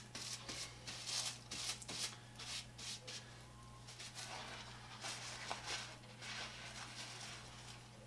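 Paintbrush being wiped and scraped against a sheet of paper: a run of short scratchy, rustling strokes, thickest in the first few seconds and again midway, over a steady low hum.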